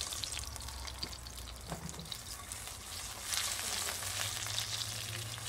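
A breast of meat and garlic cloves sizzling in hot oil in a nonstick frying pan, with a few clicks in the first two seconds. The sizzling swells louder a little past the middle.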